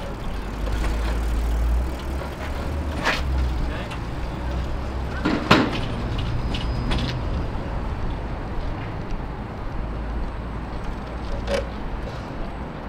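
Outdoor city ambience: a steady low rumble with a few scattered sharp knocks, the loudest about five and a half seconds in.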